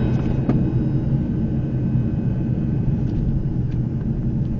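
Steady low engine rumble of an airliner, heard inside the passenger cabin as the plane taxis after landing.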